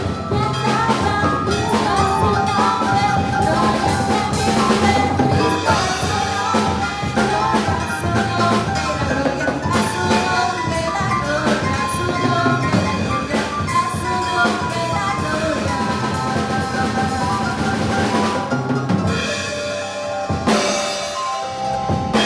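Drum kit played in a busy Latin songo-style groove, with rimshots, snare and bass drum, over a backing track of church music. The drumming drops out near the end while the backing music carries on.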